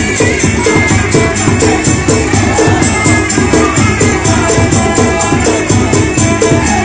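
Muay Thai fight music (sarama): a reedy pipe melody winding over pitched hand drums, with a small cymbal clinking steadily about three to four times a second.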